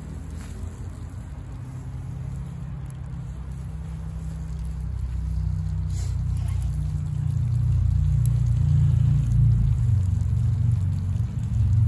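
Low rumble of wind buffeting the microphone, growing louder over the first several seconds and then holding.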